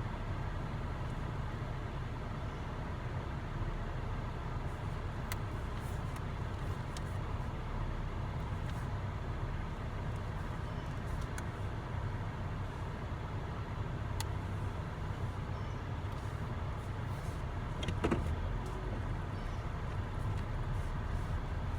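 Steady low rumble of a running vehicle, with a few faint clicks and a short louder sound with a falling pitch near the end.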